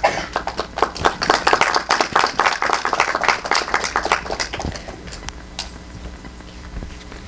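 A small audience clapping, many separate hand claps that thin out and stop about five seconds in.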